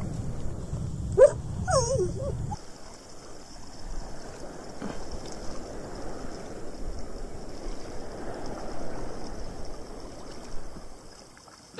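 A dog gives two short whining yelps about a second in, over the wash of small waves lapping. A low rumble cuts off a couple of seconds in.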